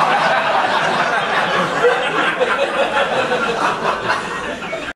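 Audience laughing in a comedy club in response to a joke, a steady crowd of laughter that cuts off suddenly at the end.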